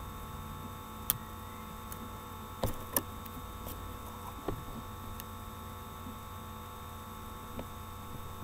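Steady electronic hum of several fixed tones, with a few short clicks and knocks from the handheld camera being handled: a sharp click a little after one second, a pair near three seconds, and fainter ones later.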